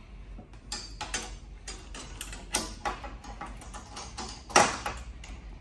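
Ratchet spanner clicking in short runs as the bolts of a steel door drain channel are tightened, with one louder click about a second before the end.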